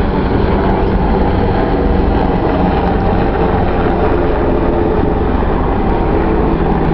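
Steady, loud drone of a military formation flypast: a KDC-10 tanker's jet engines together with AH-64 Apache helicopters' rotors and turbines.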